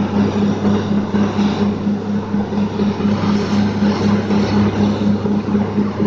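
Truck-mounted borewell drilling rig running: a steady engine drone with a pulse about four times a second.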